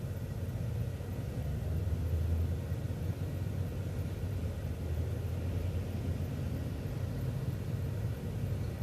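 City transit bus driving, a steady low engine and road rumble heard from inside the bus.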